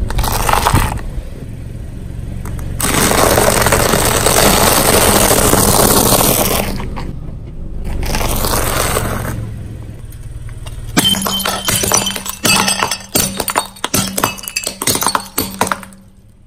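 Car tyre rolling over and crushing objects on concrete: a long, dense crunching, then from about 11 seconds in a rapid run of sharp cracks and clinks as ceramic plates shatter under the tyre.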